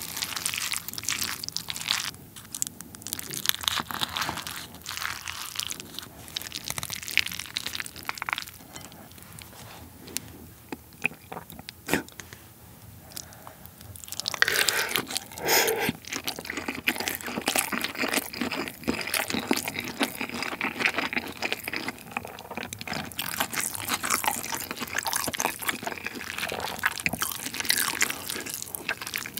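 A wooden spoon stirring saucy rice in a ceramic bowl, with short knocks and sticky, wet sounds. From about halfway, a large mouthful of the spicy rice is taken off chopsticks and chewed close to the microphone, louder than the stirring.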